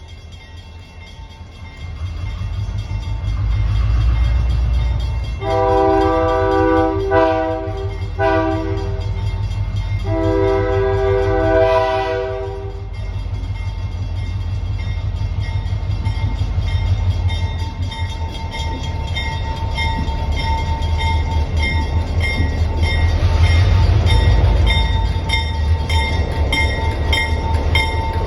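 Excursion train's locomotive rumbling as it approaches and passes, its horn sounding a crossing signal of a long blast, two short blasts and a final long blast. A steady rolling rumble continues after the horn.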